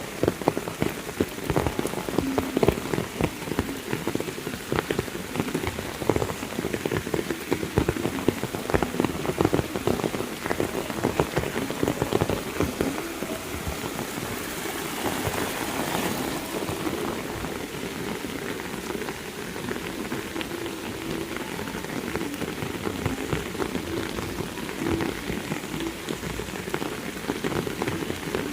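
Heavy rain falling, with many close, sharp drop impacts against a steady hiss; the sharp hits thin out in the second half.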